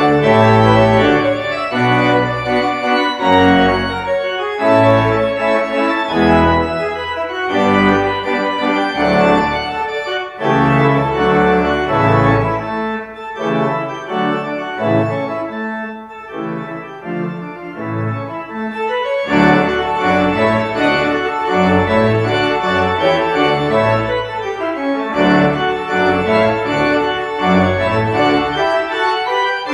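Pipe organ playing a piece in full chords over moving bass notes. It thins to a softer passage in the middle, then comes back fuller about two-thirds of the way through.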